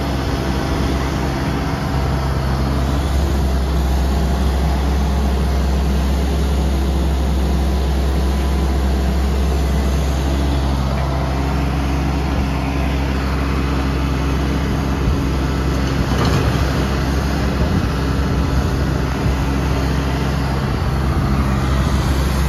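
Takeuchi TB257FR compact excavator's diesel engine running steadily while the machine works its arm and slews.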